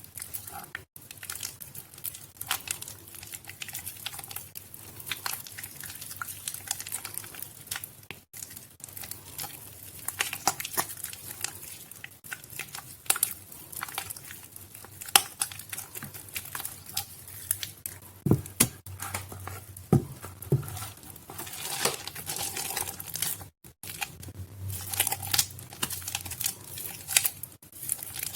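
Soaked Nuvo bar soap being squished and crushed by hand: a dense, continuous wet crackling with scattered louder pops.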